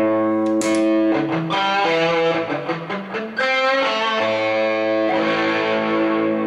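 Electric guitar played through a Deluxe dual-channel preamp pedal: four strummed chords, each left to ring for a second or two.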